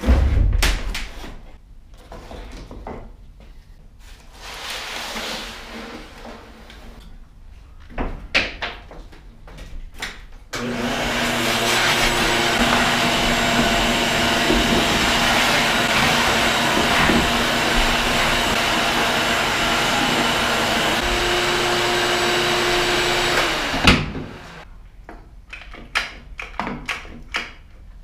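Shop vacuum switched on about ten seconds in, running steadily with a constant motor whine for about thirteen seconds while cleaning the truck's bare floor, then switched off. Scattered short knocks and scrapes before and after it.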